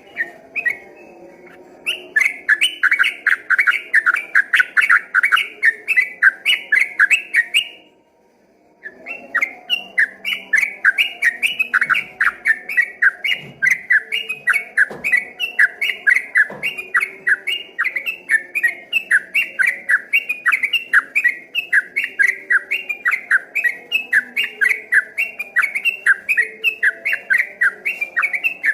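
Sooty-headed bulbul (trucukan) singing a long, rapid 'ropel' song: short whistled notes repeated about four to five times a second, with a brief break about eight seconds in before the run resumes and keeps going.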